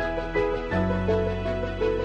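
Background music: a slow melody of short notes over sustained bass notes that change about every second and a half.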